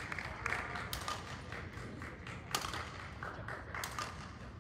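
Sharp, echoing taps of badminton rackets striking shuttlecocks in a sports hall: a few irregular strikes, the sharpest about one, two and a half and nearly four seconds in.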